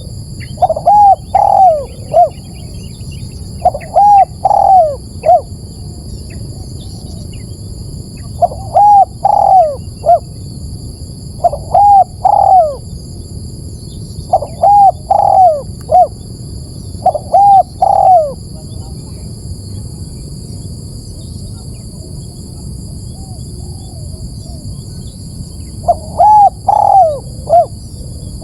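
Spotted dove cooing: phrases of three or four rising-and-falling coos, repeated every two to three seconds, with a pause of several seconds in the second half. A steady high-pitched whine runs underneath.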